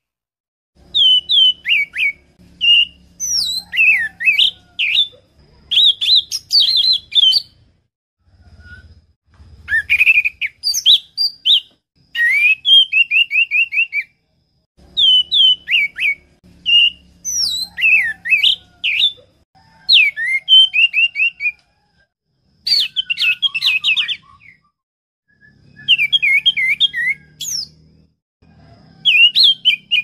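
Orange-headed thrush (anis merah) singing: phrases of a second or two of loud, sweeping whistled notes and fast trills, repeated with short pauses between them.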